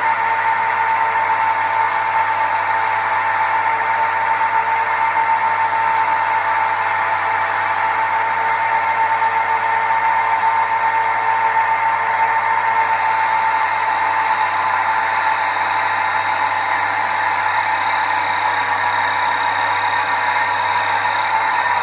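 Wood lathe running steadily with a constant whine, a gouge cutting into a spinning wooden bowl blank to hollow out its inside.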